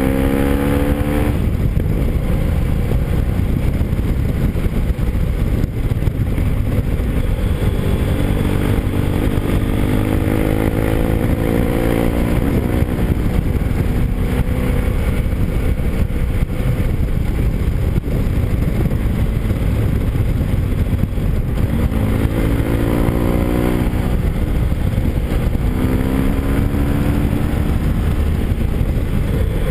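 Motorcycle engine running while riding, its pitch rising several times as it accelerates: at the start, about a third of the way in, and twice near the end. A heavy steady rush of wind and road noise runs underneath.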